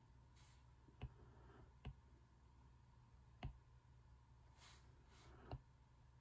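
Stylus tip tapping on an iPad's glass screen: four faint, sharp taps spread unevenly, with a soft swish or two of the tip sliding between them.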